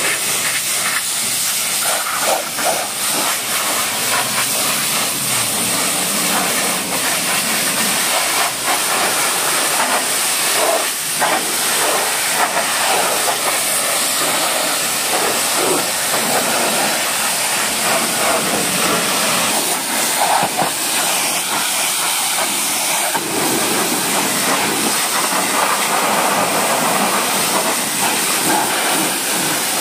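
High-pressure water jet from a pressure washer hissing steadily as it rinses foam off a car's body panels and blasts the wet ground, the sound shifting slightly as the spray is swept around.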